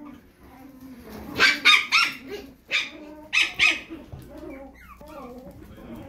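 Puppies yapping: about seven sharp, high-pitched yaps in quick runs, between about one and four seconds in.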